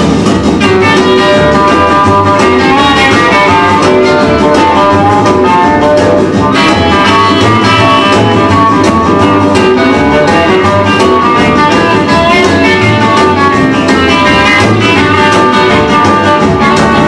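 A recorded song playing as an instrumental stretch with no singing, led by guitar over a steady beat.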